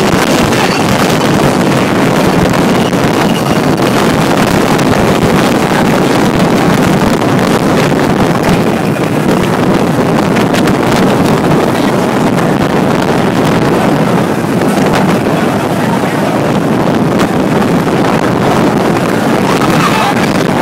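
Heavy rain pouring down in high winds, the wind buffeting the microphone: a loud, steady rush of noise.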